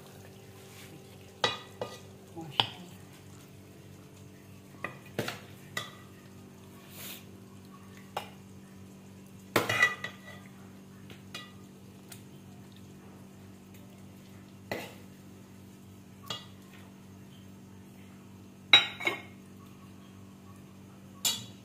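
Metal ladle clinking and scraping against a metal cooking pot and a serving dish as curry is served, in scattered knocks about a second or two apart, the loudest a pair near the end. A faint steady low hum runs underneath.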